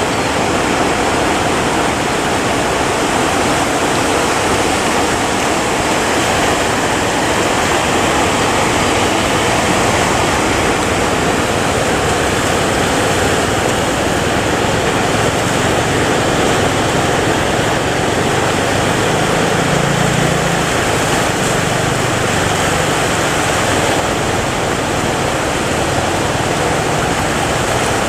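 Steady, loud rushing noise of rough sea and wind, with a faint low hum rising briefly around twenty seconds in.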